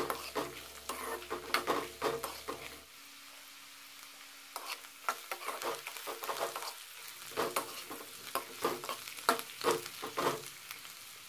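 Steel spatula stirring and scraping sliced onions and dried red chillies frying in oil in an aluminium kadai, over a faint sizzle. The strokes come in irregular bursts, with a brief lull about three seconds in.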